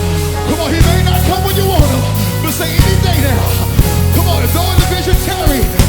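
Live worship band playing loud, rock-style music, with heavy sustained bass, regular drum hits and a voice singing gliding phrases over it.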